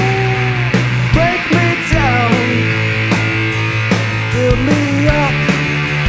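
Rock band playing an instrumental passage live: electric guitar, bass guitar and drum kit, with guitar notes bending in pitch over a steady bass line and regular drum hits.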